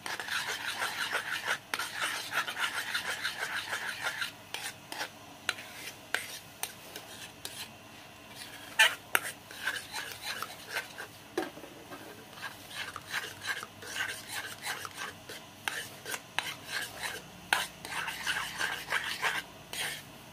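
Metal spoon scraping and stirring a thick glutinous rice flour mixture in a small aluminium pot as it cooks, in quick rasping strokes. Fast and dense for the first few seconds, then slower, separate scrapes, with a fast run again near the end.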